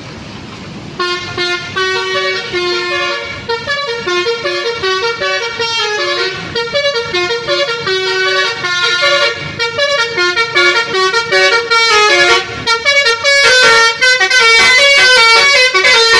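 A bus's multi-tone musical air horn (a "telolet" horn) plays a rapid stepping tune. It starts about a second in and grows louder as the bus comes closer.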